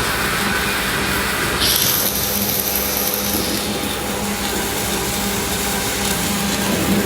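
A cobot's MIG arc welding 10 mm carbon steel: a steady crackle and hiss over a steady hum. A brighter, higher hiss comes in a little under two seconds in and lasts about a second and a half.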